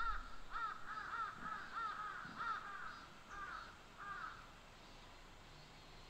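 A crow cawing in a quick series of about ten short calls, each rising and falling in pitch, that stops a little past four seconds in.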